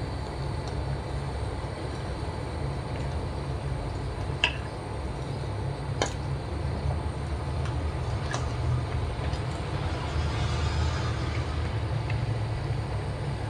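Water with sago pearls at a rolling boil in a clay pot on the stove: a low, steady rumble. A plastic ladle stirs through it, tapping sharply against the pot a few times in the middle.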